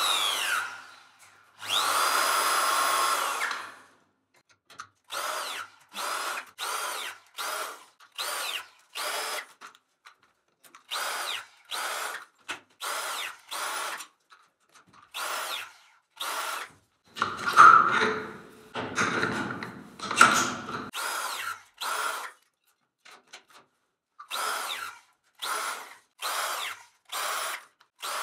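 Battery-powered radial press tool whirring as it crimps press fittings onto multilayer aluminium composite water pipe. A long press cycle runs in the first seconds, then many short whirring bursts follow about one a second, with louder ones a little past the middle.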